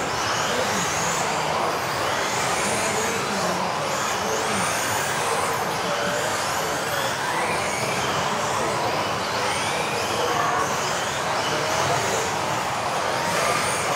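Several RC off-road buggies racing together: overlapping high motor whines that keep rising and falling as the cars accelerate and brake, over a steady rushing noise.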